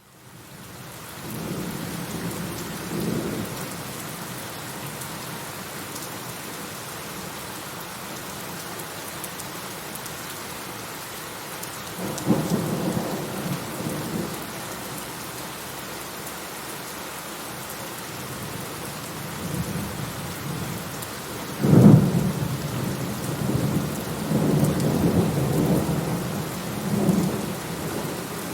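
Steady heavy rain falling, with rolling thunder rumbling about a third of the way in and again near the end, where a sudden loud thunderclap breaks out and rumbles on.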